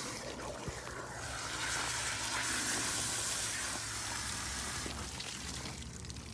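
Garden hose spray nozzle spraying water steadily onto a freshly plucked turkey carcass, rinsing it clean. The spray hisses evenly and eases a little about five seconds in.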